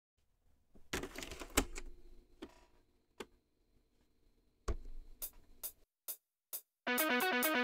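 MIDI music played back by a Roland MT-200 from floppy disk: a sparse opening of scattered percussive hits over a faint held chord, then a fast, busy rhythmic part starts about seven seconds in.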